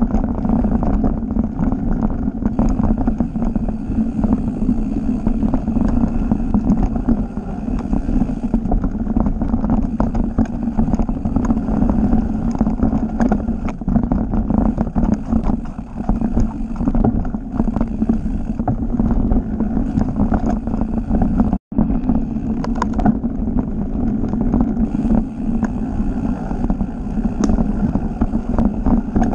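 Mountain bike riding fast down a rough forest singletrack: wind buffeting the microphone, tyres running over dirt, and the bike rattling and clattering over roots and rocks. The sound cuts out for a split second about two-thirds of the way through.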